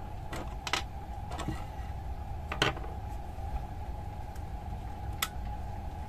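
Several sharp clicks, spaced irregularly, over a steady low electrical hum and a faint steady tone.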